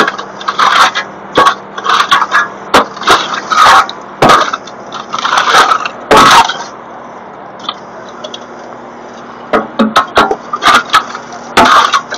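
Burnt truck wreckage being picked up and shifted by a machine, giving irregular sharp cracks, crunches and scrapes of charred debris and metal, with an engine running steadily underneath.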